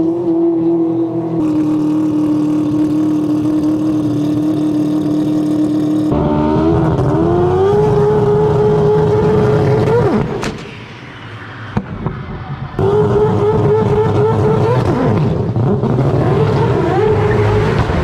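Four-rotor rotary engine of a Mazda RX-7 running hard under load, holding a steady pitch and then revving higher about six seconds in. A sharp crack comes about ten seconds in as the tow strap snaps, the engine note drops away briefly, then it is heard running hard again.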